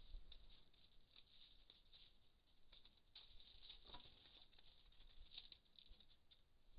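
Near silence, with faint scattered ticks and crackles.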